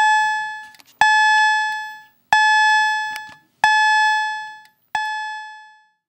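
Wheelock CH-70 fire alarm chime sounding a series of single chime tones, each struck suddenly and fading away, about one every 1.3 seconds; the last one is softer.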